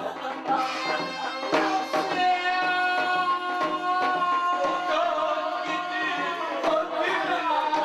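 Korean shamanic ritual (gut) music: long held melodic notes over regular drum strokes.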